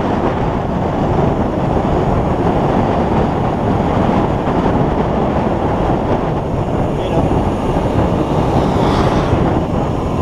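Wind rushing over the microphone of a bike rider's camera while riding, a loud steady rush with no let-up.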